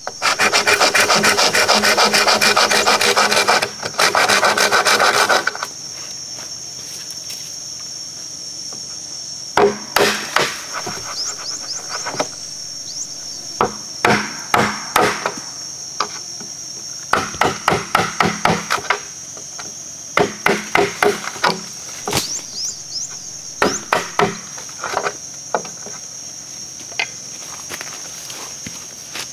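Hand saw cutting through green bamboo: fast continuous strokes for about the first five seconds, then short runs of strokes broken by pauses.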